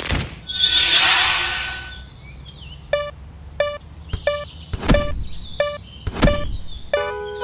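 Japanese railway level-crossing alarm in a cartoon soundtrack, striking its kan-kan tone evenly about one and a half times a second from about three seconds in, some strikes with a low thump. A rushing noise fills the first two seconds.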